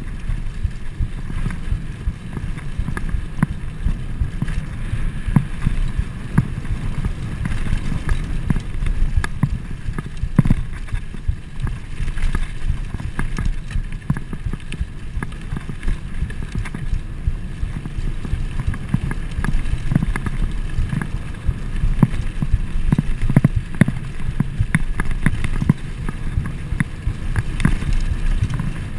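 Wind buffeting a GoPro's microphone while a Trek Fuel EX full-suspension mountain bike's tyres rumble over a dirt trail at speed, with frequent clicks and rattles as the bike jolts over bumps.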